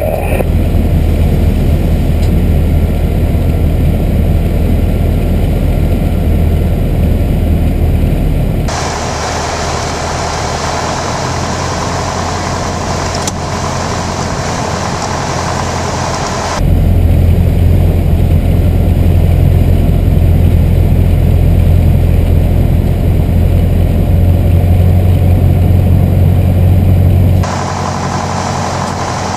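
Single-engine light aircraft (Piper Warrior II, four-cylinder Lycoming O-320) engine and propeller droning steadily on final approach, heard from inside the cockpit. The sound changes abruptly three times as the recording switches between two cameras: one gives a heavy low hum, the other more hiss of propeller and wind.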